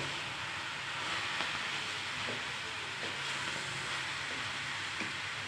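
Steady sizzling hiss of fenugreek leaves and potato cooking in a kadhai, with a few light clicks and scrapes of a metal spatula stirring them.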